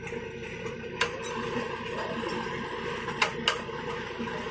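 A boat's engine running steadily under a few sharp knocks and clatters from crew handling the catch in plastic basins. The knocks come once about a second in and twice in quick succession past the three-second mark.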